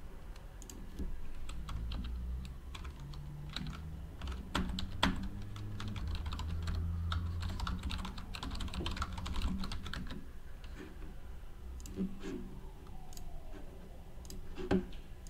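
Typing on a computer keyboard: runs of quick keystrokes, thickest in the middle, with a couple of louder single clicks about five seconds in and near the end.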